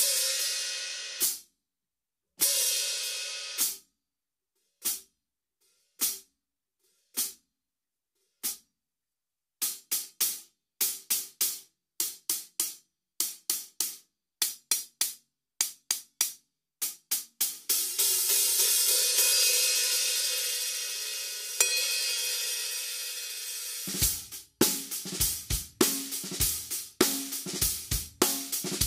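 Istanbul Mehmet 14-inch Samatya hi-hats played with a stick. Two open strokes ring and are cut off sharply, followed by single closed strikes about a second apart and then a quicker closed pattern of about two a second. A long open wash follows and slowly fades, and in the last few seconds the hats keep time in a groove with bass drum and snare.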